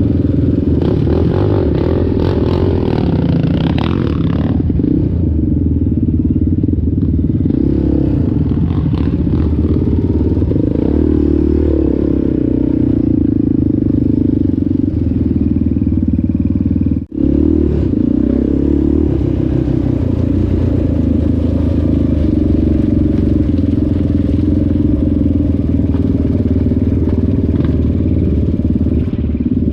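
ATV engine running steadily under load, with a brief dropout about halfway through.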